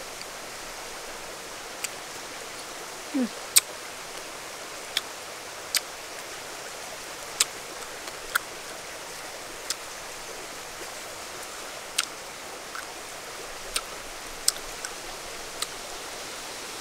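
Longsat fruit being peeled and eaten by hand: scattered sharp clicks and snaps of the skin splitting and of the mouth, about a dozen in all, over the steady rush of a stream.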